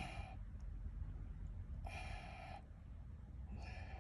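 Three short, breathy puffs of a person breathing hard, about two seconds apart, while straining against a hooked eel, over a steady low rumble.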